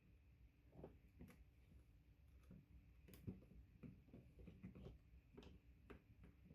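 Near silence, with a few faint, scattered clicks from handling network cable wires at a patch panel.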